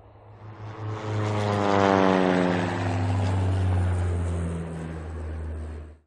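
Propeller airplane flying past as a sound effect. The engine drone swells over the first couple of seconds, its pitch falls steadily as it passes, and it cuts off suddenly near the end.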